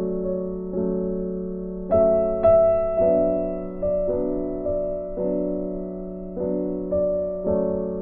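Slow, soft piano background music: chords struck about once a second and left to ring and fade, with a brighter, louder chord about two seconds in.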